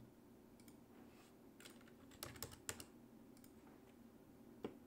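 A few faint computer-keyboard key presses, the Escape key among them, with clicks grouped around the middle and one more near the end, over quiet room tone.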